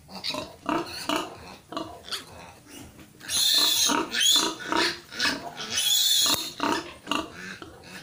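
Newborn piglet grunting in short calls, then squealing loudly twice, each shrill squeal lasting about a second, as it is held and handled at the mouth.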